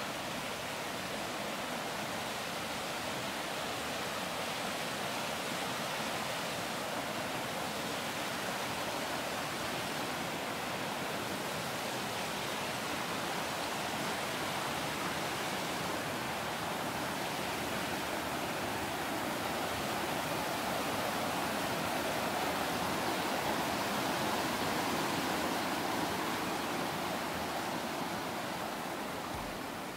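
A rocky mountain stream rushing in small rapids over boulders, a steady rush of water that fades out near the end.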